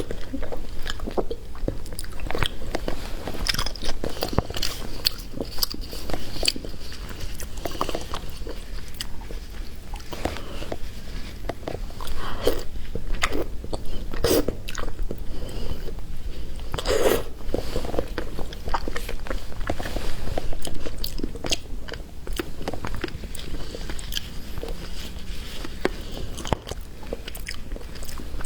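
Close-miked chewing of fatty pork, with many short wet mouth clicks and smacks.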